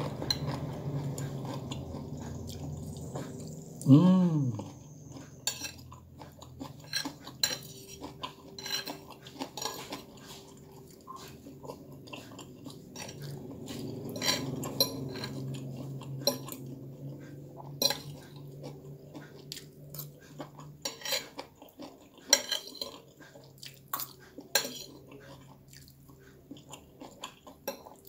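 Metal spoon and fork clinking and scraping on a plate while someone eats noodles, in irregular sharp clicks about once a second. About four seconds in, a loud short vocal sound falling in pitch comes from the eater.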